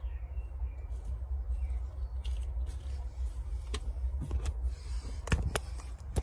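Steady low rumble with a handful of sharp clicks and knocks, the loudest pair about five seconds in as the phone is moved.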